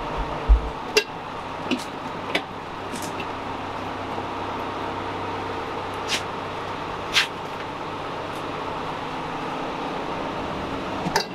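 A steady mechanical hum with scattered sharp metal clicks and a couple of low knocks while an engine is being lowered out of a car on an engine crane.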